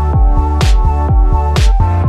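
Electronic background music with a steady beat: deep kick drums several times a second and a sharp snare-like hit about once a second over held synth chords.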